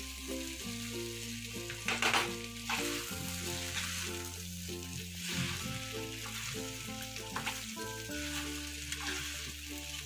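Tomato noodles sizzling in a frying pan while a metal spatula stirs and scrapes them, with a sharper scrape about two seconds in. A background tune with low held notes plays underneath.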